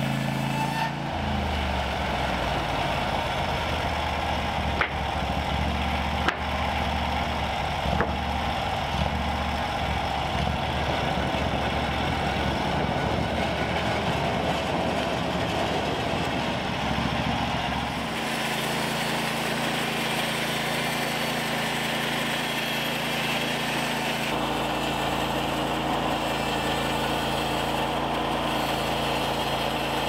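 Portable band sawmill running, its gasoline engine droning steadily as the band blade cuts through a timber beam. A few sharp knocks come about five to eight seconds in, and the engine note changes about two-thirds of the way through.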